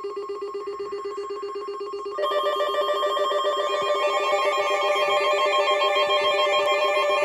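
Emergency alert attention tones going off for a flash flood warning. A steady multi-tone alarm starts abruptly, and a second, louder alert tone joins about two seconds in.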